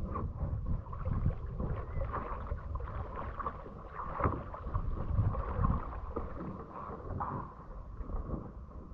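Water sloshing and splashing around a kayak as the paddler strokes the water with his bare hands instead of a paddle, in uneven, irregular splashes over a low rumble.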